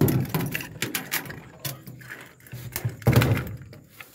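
Irregular clinks and knocks of tools and metal parts being handled and set down, with a heavier thud at the start and another about three seconds in.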